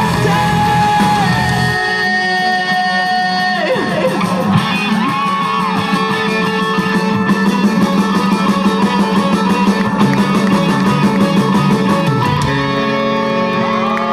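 Live rock band playing an instrumental passage, with electric guitars sustaining long notes that bend in pitch.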